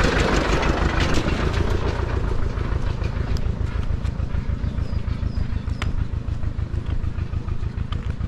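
A vehicle engine running steadily and close by, with a rapid, even low pulsing.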